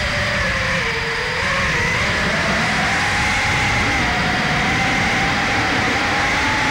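Electric motors and propellers of the camera-carrying chase aircraft whining, the pitch dipping about a second in and then rising and holding as the throttle changes, over steady wind rush on the microphone.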